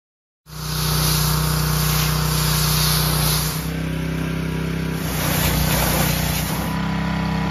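Pressure washer running: a steady motor drone under the loud hiss of the water jet spraying the boat's deck and hatches. The hiss rises and falls as the spray moves across surfaces. It starts abruptly about half a second in.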